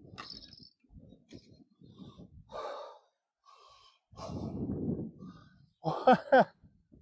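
A person breathing hard in rough puffs, with two short voiced gasps about six seconds in that are the loudest sounds.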